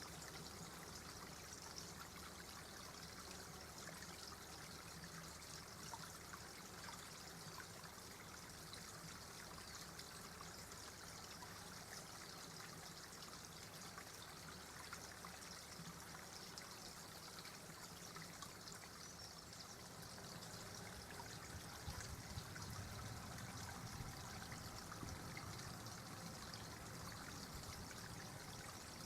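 Faint, steady running water: a small stream trickling and splashing without a break.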